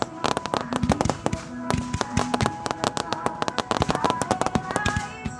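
Fireworks display, with many shells and crackling stars going off at once in a rapid, irregular run of cracks and pops. Music plays underneath with sustained notes.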